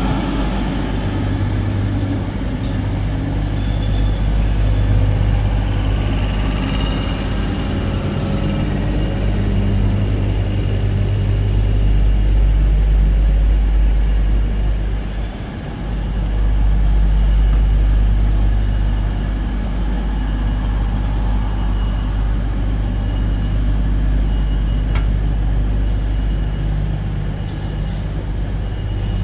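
Diesel trains idling at a station platform: a steady, deep engine hum that dips briefly about halfway through.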